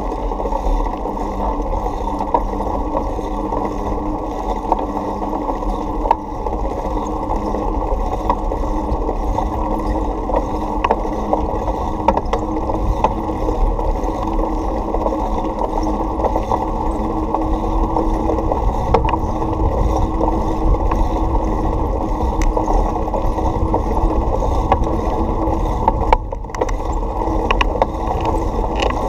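Steady, muffled rumble of wind and road noise from a bicycle rolling along a paved street, with a few small clicks and rattles from the bike over bumps.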